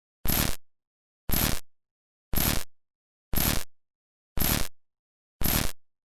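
Bad-signal sound effect: short bursts of static crackle, six of them about a second apart, with dead silence between.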